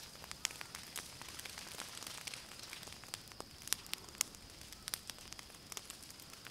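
Savannah bushfire crackling: a steady hiss broken by many sharp, irregular pops, with a faint steady high tone running underneath.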